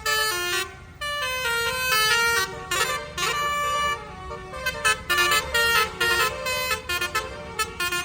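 Bus 'telolet' multi-tone horn playing a quick melody of stepped notes, with short breaks, over a steady low rumble.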